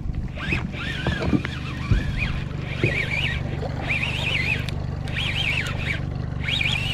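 Small outboard motor running at trolling speed, a steady low drone. Over it, from about half a second in, comes a repeated high, wavering squeak.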